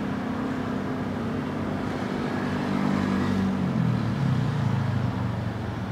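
Light road traffic passing, with motorcycle and car engines humming. One engine note falls in pitch about four seconds in as the vehicle goes by.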